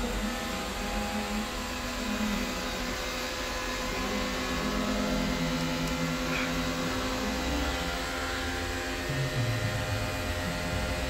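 Steady whirring hiss of electronic equipment cooling fans running on a test bench, with low tones beneath it that change pitch every second or so.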